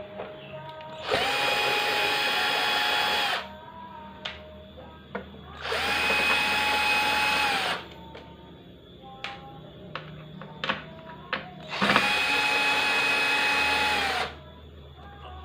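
Cordless drill-driver backing out the screws of a plasma TV's circuit board, its motor running in three spells of about two seconds each at a steady whine, with small sharp clicks of screws and handling in between.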